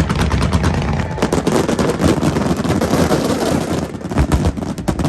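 Aerial fireworks going off in a rapid barrage: dense, fast crackling over deep booming shell bursts.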